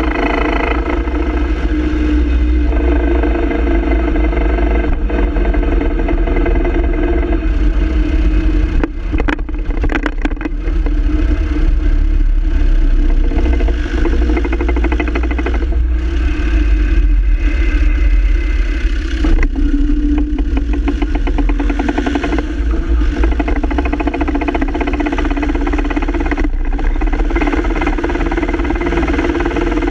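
Land Rover Defender TD5 running, its five-cylinder turbodiesel going steadily with drivetrain noise, with a rattle from the double cardan joint on the propshaft. There is a brief dip in level about nine seconds in.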